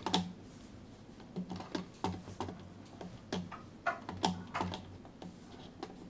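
Irregular clicks and taps of computer keys being pressed, about a dozen scattered over a few seconds.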